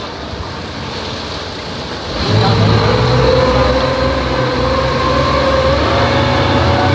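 Speedboat outboard motor running over a steady rush of water, then opening up about two seconds in: the level jumps and the engine note climbs slowly as the boat speeds up.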